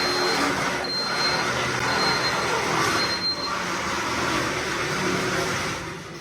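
Small electric ride-on vehicle reversing: its reverse warning beeper sounds four short high-pitched beeps about a second apart over a steady noisy running sound, which fades near the end.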